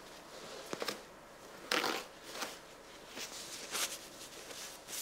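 A string of short rustling and scraping handling noises at a kitchen work counter. A few sharp clicks come just before one second in, and the loudest rustle comes at about two seconds.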